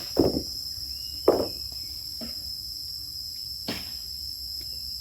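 Steady high-pitched chirring of crickets or similar insects, with two loud thumps in the first second and a half and a lighter knock near the end.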